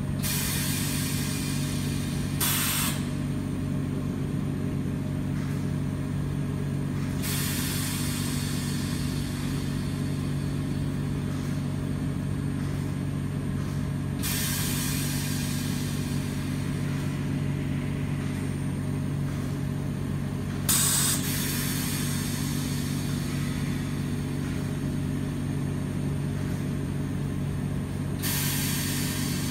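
Oxygen-fed ozone generator setup running with a steady low hum. About every seven seconds a hiss of escaping air lasts two or three seconds, the pattern typical of the oxygen supply cycling and venting.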